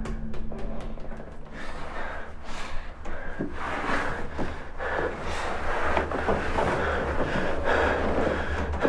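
A man gasping and breathing hard in quick, noisy breaths as he comes out of a hypnotic trance, over a steady low hum.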